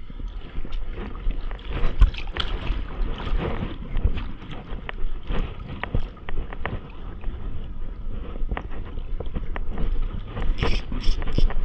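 Wind buffeting the microphone on a small boat at sea, over a steady low rumble, with scattered knocks and clicks throughout. A quick run of sharp hissing bursts comes near the end.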